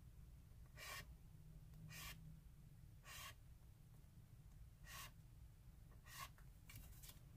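Faint scratching of a black felt-tip marker writing on a paper card: short separate strokes about once a second, with a quicker run of strokes near the end.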